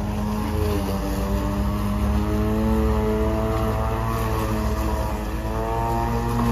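Greenworks corded electric lawn mower running while cutting grass: a steady motor whine. Its pitch dips briefly about five seconds in, then rises again.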